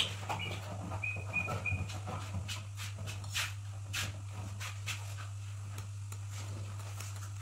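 A steady low hum, with scattered faint clicks and rustles and a few short high chirps between one and two seconds in.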